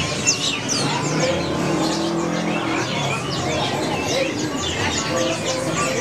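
Many caged songbirds chirping and whistling at once, in dense overlapping high calls that sweep quickly down in pitch, over a low steady background.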